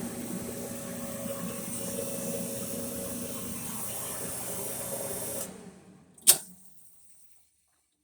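GE electric dryer running under test, its drive motor and blower giving a steady hum. About five and a half seconds in it is switched off and dies away over a second, then comes a single sharp click.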